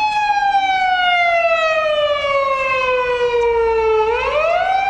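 Japanese fire engine siren wailing. One long tone holds, then slowly falls in pitch for about four seconds and swoops quickly back up near the end.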